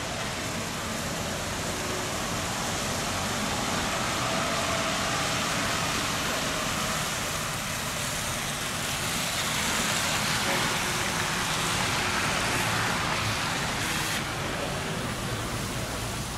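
Hess articulated trolleybus driving past close on a wet road: tyre hiss and street traffic noise swell as it nears and passes, then the sound changes abruptly near the end.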